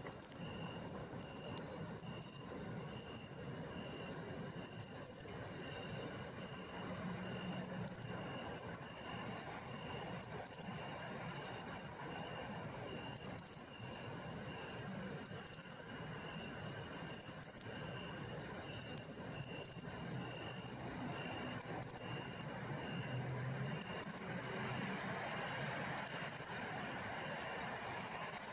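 Matsumushi (pine cricket, Xenogryllus marmoratus) singing its "chin-chirorin" call: short, high chirps in clusters of two or three, repeated every second or two. A faint steady high tone sounds beneath them.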